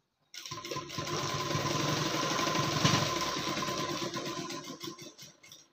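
Sewing machine stitching along a seam at a steady speed. It starts about a third of a second in and runs evenly, then slows into a few short bursts and stops near the end.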